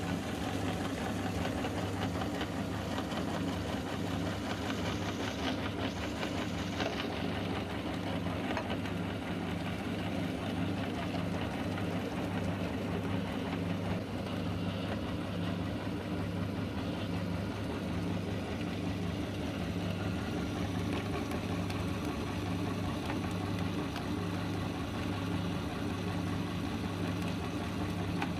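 Motor-driven meat grinder running steadily with a constant hum, grinding ice cream through its auger and plate.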